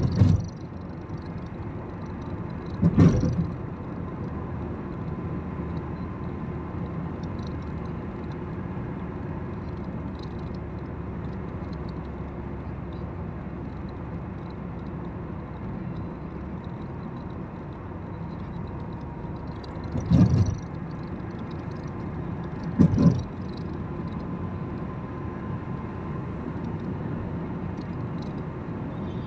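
Steady road and engine noise inside a car cruising on a highway, with a few short, loud low thumps: near the start, about three seconds in, and twice more later.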